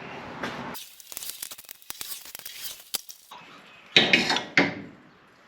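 A quick run of small sharp metallic clicks and clinks from hand tools working on motorcycle fork parts, then a louder short clatter about four seconds in.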